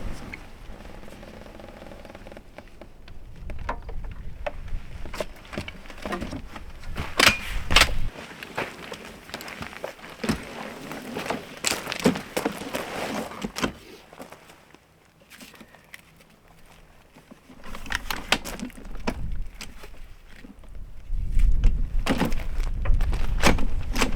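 Camping gear being handled and set up: scattered clicks, knocks and thuds, with a short quiet gap around the middle. Wind buffets the microphone at the start and again near the end.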